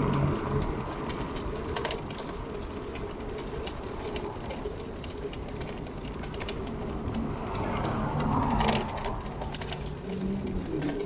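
Bicycle freewheel hub ticking rapidly as the bike coasts, over steady street and traffic noise.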